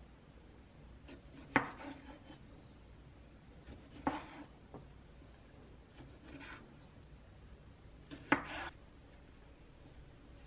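A santoku knife slicing cherry tomatoes in half on a wooden cutting board. Three sharp knocks of the blade hitting the board, a couple of seconds apart, with fainter cuts between.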